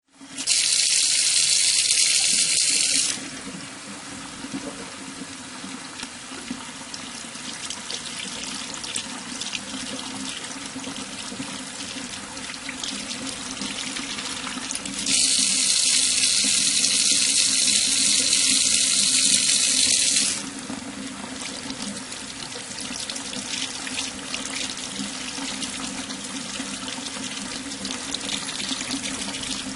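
Water pouring into a surgical tray: two strong hissing gushes, one starting about half a second in and lasting under three seconds, the other from about fifteen seconds in for about five seconds, with a quieter steady run of water between and after them. A steady low hum lies under it throughout.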